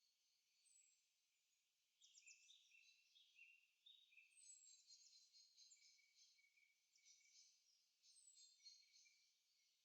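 Faint forest birdsong: several birds chirping and trilling, with a few short falling whistles, sparse at first and busier from about two seconds in.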